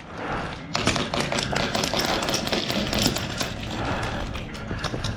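Airsoft guns firing in rapid strings of shots, a fast irregular clatter of clicks starting about a second in.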